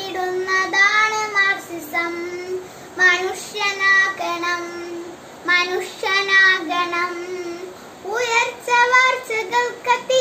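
A young girl singing solo without accompaniment, holding steady notes in phrases broken by short breaths.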